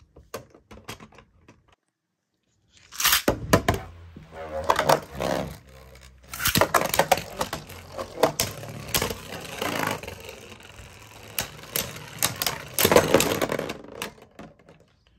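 Two Beyblade spinning tops are launched into a plastic stadium about three seconds in. They spin with a scraping whir and clash in repeated sharp clacks, until one bursts apart near the end.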